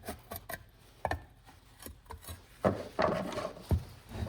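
Sharp knocks and taps as brass pins are knocked out of an antique hand-crank bench grinder, with a stretch of scraping and rubbing past the middle and one heavy knock near the end.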